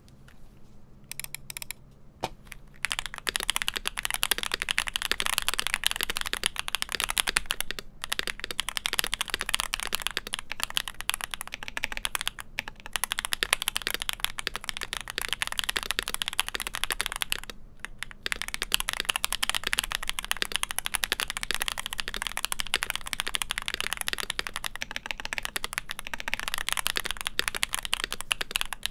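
Steady fast typing on an Owlab Jelly Epoch mechanical keyboard with factory-lubed Akko V3 Cream Black Pro linear switches on an aluminum plate, foam-dampened, with GMK keycaps: a dense stream of keystroke clacks. It starts a couple of seconds in and stops briefly twice along the way.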